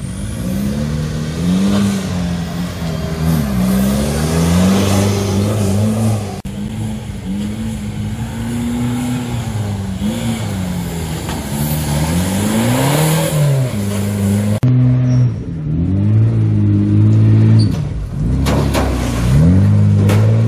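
Off-road 4x4 engines revving hard, the pitch climbing and dropping again and again under repeated throttle. The sound changes abruptly twice, about six and about fifteen seconds in.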